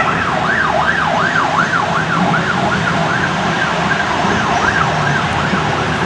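Emergency vehicle siren yelping, its pitch sweeping quickly up and down about three times a second and fading near the end, over a steady rumbling noise.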